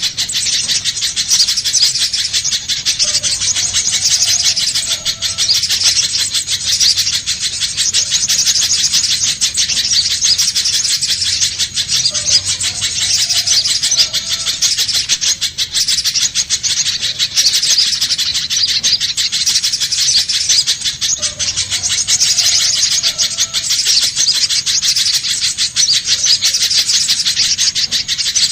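Pijantung pisang (a spiderhunter) calling in a fast, unbroken stream of high-pitched chips, played as a bird-trapping lure call.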